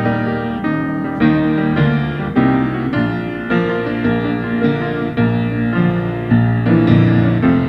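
Grand piano playing a hymn, a new chord struck about twice a second.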